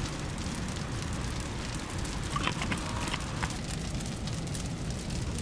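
A stick stirring flour and water in a plastic tub, giving a few short clicks and scrapes about two and a half to three and a half seconds in, over a steady background hiss.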